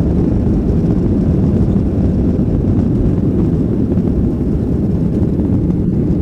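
Boeing 737-500's CFM56-3 jet engines at takeoff power: a loud, steady low rumble.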